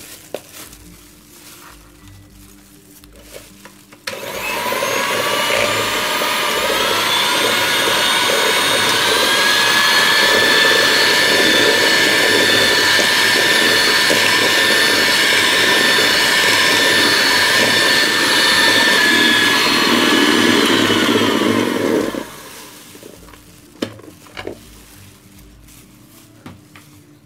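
Electric hand mixer with twin wire beaters whipping egg whites with sugar and cream of tartar into meringue. Its motor whine rises as it starts about four seconds in, holds steady, and cuts off suddenly about five seconds before the end.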